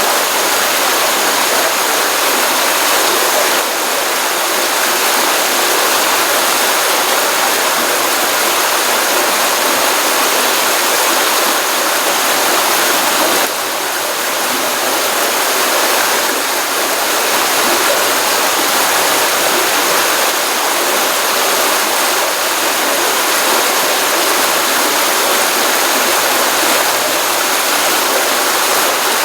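Stream water running continuously from a pond, a steady dense rush of flowing and splashing water swollen after rain, with a brief slight dip in level about 13 seconds in.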